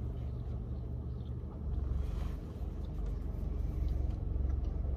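Steady low rumble of a running car, heard inside the cabin of the parked car.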